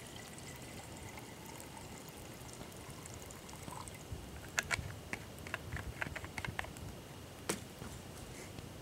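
Water pouring in a thin trickle from a plastic canteen into a metal bushpot, then a string of light clicks and knocks about halfway through, with one sharper knock near the end.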